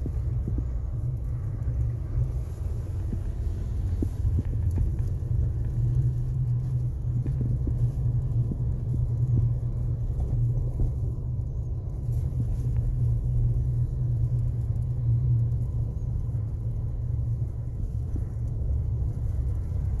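Low, steady rumble of a car driving slowly over a snow-covered road, heard from inside the cabin, with scattered light knocks from the ride.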